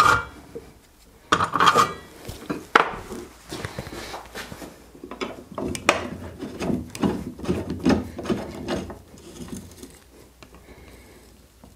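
Hex key turning a bolt on a saw-blade sharpener's carriage: irregular metallic clicks, scrapes and rubbing as the bolt is tightened, with a few sharper knocks near the start.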